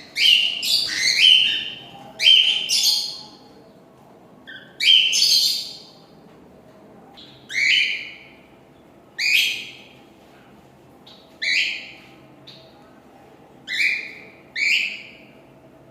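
Cockatiel singing: a string of chirping, whistled phrases, several in quick succession over the first three seconds, then single short calls every second or two.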